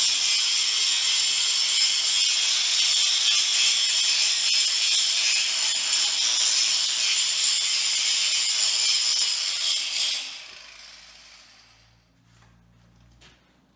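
Power grinder working on steel, a loud steady whine with hiss, then released about ten seconds in and spinning down over a couple of seconds.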